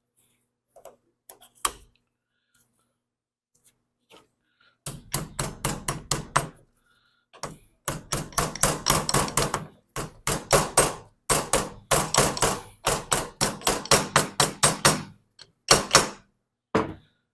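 Rapid hammer blows on metal, about five a second, in runs of a few seconds with short pauses, ending in a few single strikes: parts being driven into a cast-iron mower blade spindle housing while new bearings are fitted.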